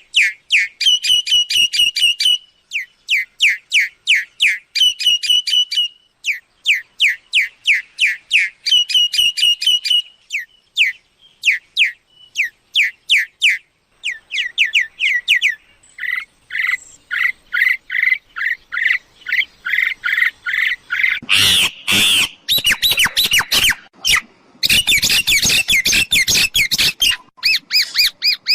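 Mynas calling, the kind of call used as a lure in decoy trapping of mynas: runs of quick, repeated sweeping chirps, then louder harsh squawking notes from about two-thirds of the way in.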